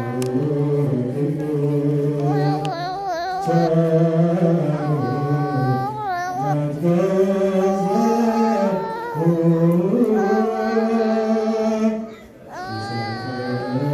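Ethiopian Orthodox liturgical chant sung in one slow melodic line, with long held notes and wavering ornaments. The line breaks off briefly about twelve seconds in and starts again.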